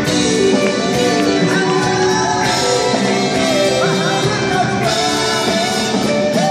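A live band playing a Thai song, with electric guitar and a voice singing the melody.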